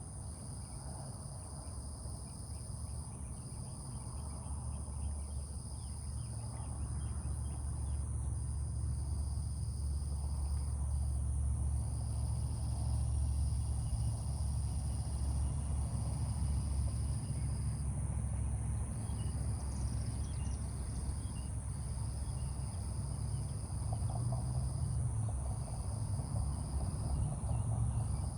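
Insects trilling in a steady outdoor chorus: one high continuous trill and a lower one that comes in stretches of a second or two. Under them is a low rumble that grows somewhat louder about a third of the way in.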